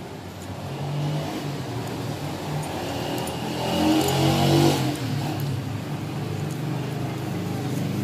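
A motor vehicle engine running with a steady low hum. It grows louder from about three seconds in, peaks around four to five seconds, then falls back, as when a vehicle revs or passes close by.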